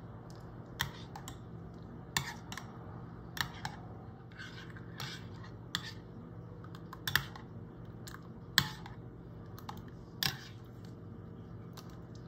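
Metal spoon clinking against a glass bowl while stirring a liquid strawberry gelatin mixture: about a dozen sharp, irregular clinks, roughly one a second, over a faint steady hum.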